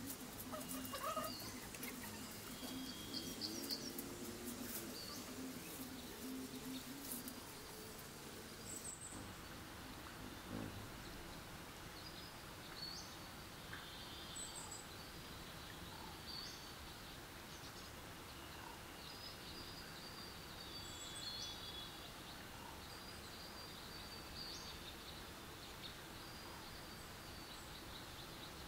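Dried palm-leaf strips rustling with light clicks as they are plaited by hand, most in the first third, with small birds chirping now and then in the background.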